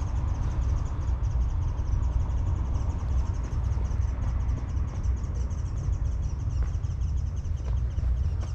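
Outdoor ambience: a loud, uneven low rumble with a fast, evenly spaced high-pitched pulsing throughout.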